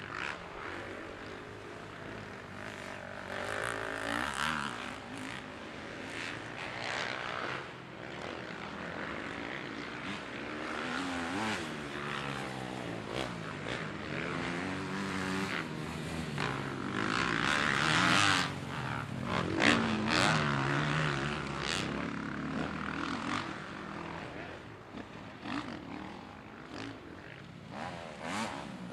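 Motocross bike engines revving, their pitch rising and falling again and again, with more than one engine heard at once; loudest about two-thirds of the way through.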